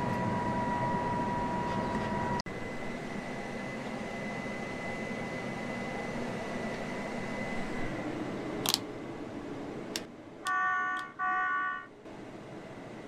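Steady machinery running noise with a constant high whine, cut off abruptly about two and a half seconds in, then the quieter steady hum inside a farm machine's cab with a couple of clicks and two short electronic beeps near the end.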